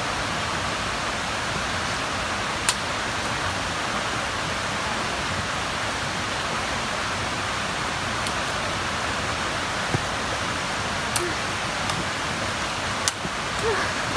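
Steady rushing of flowing water, with several sharp clicks through it.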